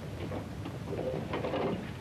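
Sky Car helicopter's engine and propeller machinery running, with an irregular clattering and knocking over a low hum.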